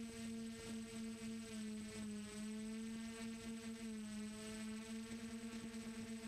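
DJI Flame Wheel F450 quadcopter's motors and propellers giving a steady hum with a string of overtones, heard from the onboard camera. The pitch sags slightly and recovers mid-way, and the level flutters quickly toward the end as the motors beat against each other.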